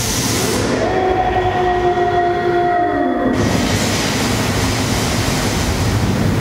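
Sound effects of a light-and-fog show through loudspeakers: a dense low rumble with a hiss that fades in the first second. Two steady tones rise, hold for about two and a half seconds, and cut off about three seconds in.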